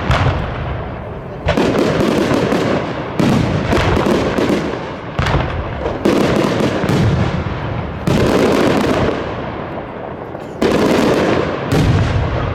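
Aerial fireworks shells bursting in a display: about half a dozen loud bangs, each followed by a rumbling echo and crackle, with a lull of a few seconds before the last two.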